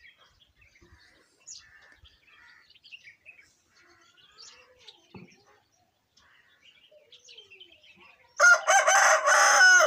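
Young aseel rooster crowing once, a long crow near the end. Before it, faint small-bird chirps.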